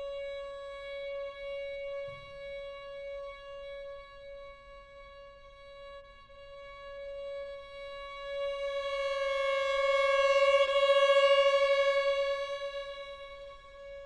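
Solo violin holding one long high note, swelling to loud about two-thirds of the way through with vibrato, then fading again.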